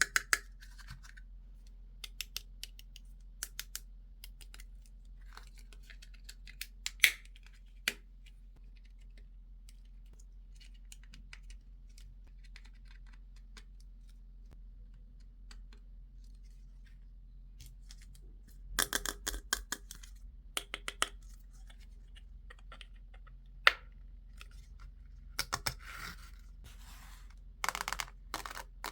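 Toy pieces and packaging handled up close: scattered sharp clicks, taps and scratches with quiet gaps between, and busier stretches about two-thirds of the way through and near the end.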